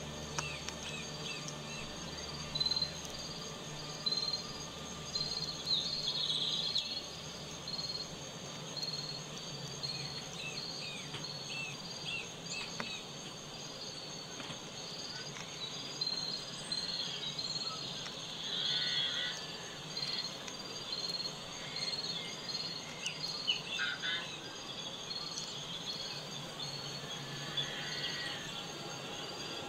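Insects chirping in a steady, even rhythm under a continuous high insect trill, with scattered bird calls and a faint low hum.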